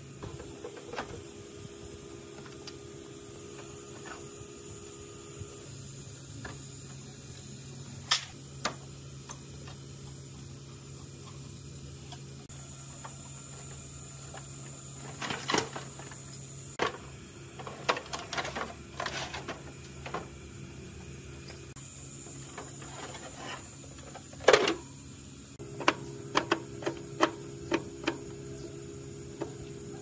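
Scattered clicks, taps and knocks of hand tools and plastic and metal parts being handled while an old Fujiaire air conditioner is taken apart, coming in short clusters with one sharper knock past the middle. A steady low hum runs underneath.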